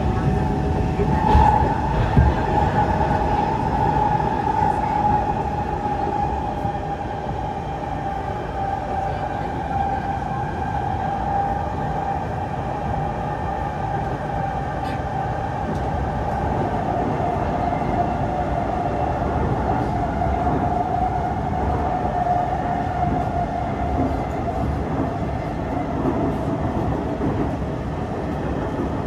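Singapore MRT train running through the tunnel, heard from inside the carriage: a steady rumble of wheels and running gear, with a motor whine that slowly falls in pitch as the train changes speed. There are a couple of knocks about one and two seconds in.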